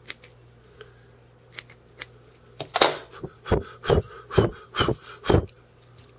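Scissors snipping off the excess Arctic fox wing hair at a tube fly's tie-in, a few light clicks, then a run of six louder short scrapes about half a second apart.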